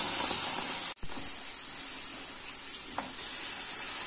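Diced pumpkin sizzling as it fries in a hot frying pan: a steady hiss that drops off sharply about a second in, then carries on a little quieter.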